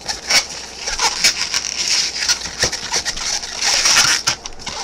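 Pale blue latex modelling balloon squeaking and rubbing under the fingers as small bubbles are twisted into it, in many short, irregular squeaks and rubs.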